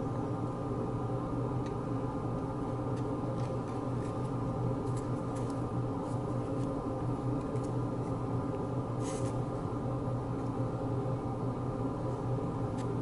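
Steady hum of room noise, with a few faint clicks as the small model pieces are handled and pressed together.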